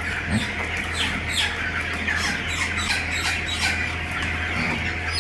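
A barn full of young chickens cheeping and squawking, many short high calls overlapping without pause, over a steady low hum.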